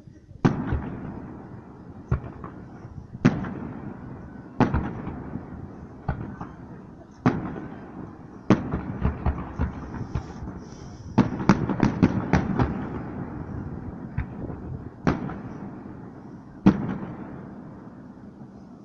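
Aerial firework shells bursting at a distance: a sharp bang every second or so, each trailing off in a long echo, with a quick run of several bangs close together about two-thirds of the way through.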